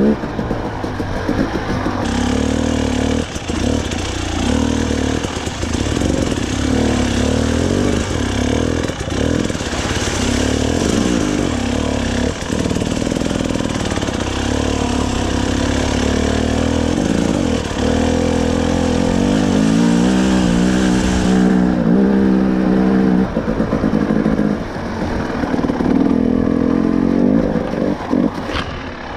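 KTM two-stroke enduro dirt bike under way on a muddy track, its engine note rising and falling with the throttle in repeated revs. Knocks and clatter come as the bike hits ruts, and a rushing hiss stops about twenty-one seconds in.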